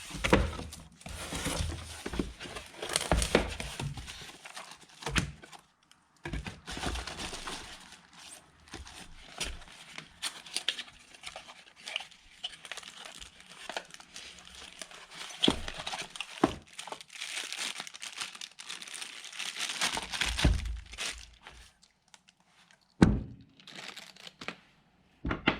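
Packaging of a new winch kit being opened and handled: irregular crinkling and tearing with scattered knocks, and a sharp thump near the end.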